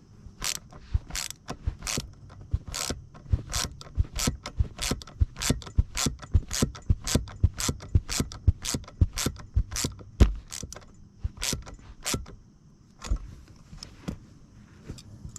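Ratchet wrench clicking in steady strokes, about two a second, as the nut on the gear shifter's shaft is tightened down; the clicking stops about twelve seconds in, with a couple of single clicks after.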